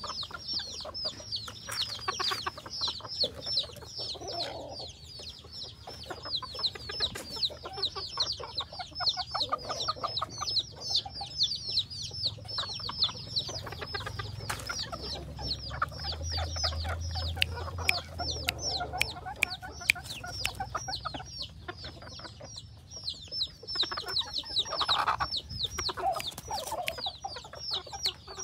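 A hybrid junglefowl-type decoy rooster clucking now and then, with a few short lower calls, the clearest near the end. Under it runs a continuous fast, high-pitched chirping, several falling chirps a second, from an unseen source.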